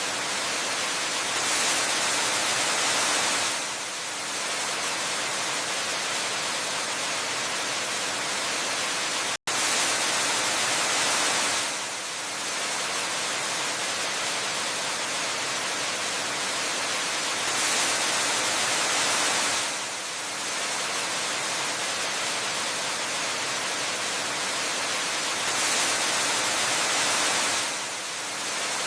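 Waterfall ambience: a steady rush of falling water, like white noise, that swells louder for about two seconds roughly every eight seconds. The sound cuts out for an instant about nine seconds in.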